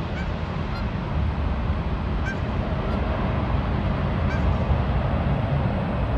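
Boeing C-17A Globemaster III's four turbofan engines, a steady low rumble as the jet passes low on final approach to land. Several short high-pitched calls sound over the rumble.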